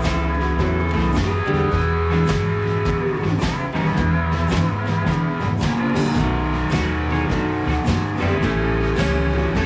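A live rock band playing an instrumental passage with no singing: guitars over a steady bass line and a drum beat.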